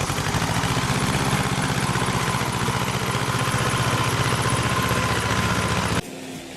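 Small farm tractor engine running steadily with a fast, even chug. It cuts off abruptly near the end, and quieter music follows.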